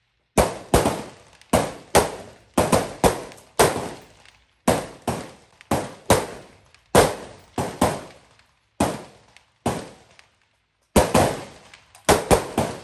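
Rifle fire from several shooters on a firing line: about twenty sharp shots at uneven spacing, each with a short echoing tail, with a pause of about a second near the end.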